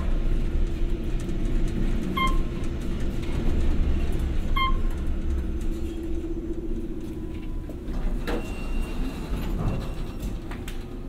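A 1999 Otis traction elevator car riding up with a steady rumble and hum, with a short electronic beep as it passes each floor, twice about two and a half seconds apart. The ride noise fades as the car slows, and the doors clunk and slide open near the end.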